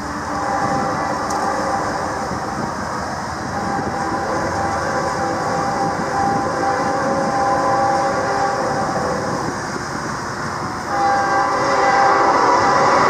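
Freight train with a horn sounding in several held tones over the rumble of diesel locomotives, growing louder about eleven seconds in.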